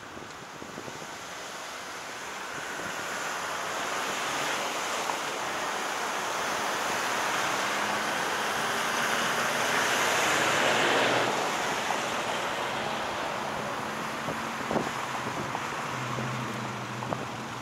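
Traffic noise of cars driving through an intersection, heard from a stopped car: a steady rush of tyres and engines that swells to a peak about ten seconds in, then falls back to a lower hum.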